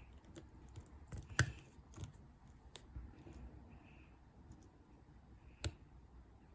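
Light scattered clicks of a lock pick and tension wrench working the pins of a padlock, the sharpest about one and a half seconds in and another near the end.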